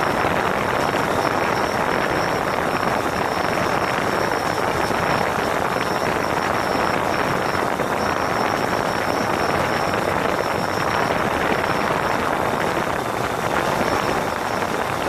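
DJI Phantom 4 quadcopter's four electric motors and propellers running steadily in flight, heard right from the airframe, with wind rushing over the microphone and a thin, steady high whine on top.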